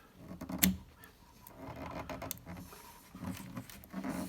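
Band switch of a Drake TX4 transmitter being turned stiffly by hand, rubbing, with a few sharp clicks as the detent steps between positions. The switch is really hard to turn, its detent freshly packed with grease that has not yet been worked in.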